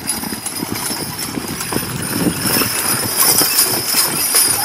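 Hoofbeats of a team of draft horses trotting on grass while pulling a wagon, with harness chains jingling. They grow louder about three seconds in as the horses pass close.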